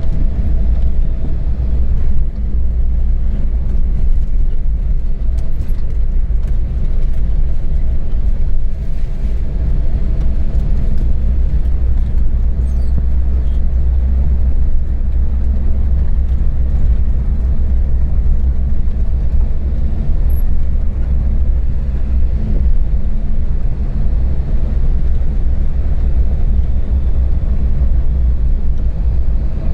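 Motor vehicle driving: a steady, loud, low rumble of engine and road noise with a faint steady hum above it.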